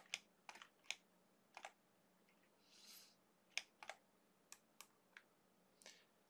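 Faint, irregular clicks of a computer mouse, about a dozen over a few seconds, with a short soft hiss about three seconds in.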